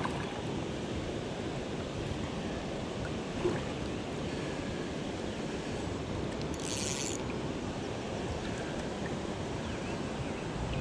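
Steady rush of flowing river water, with a short high hiss about two-thirds of the way through.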